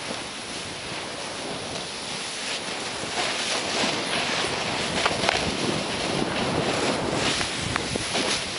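Steady hiss of a rider sliding through powder snow, mixed with wind rushing over the microphone, with a few short scrapes along the way.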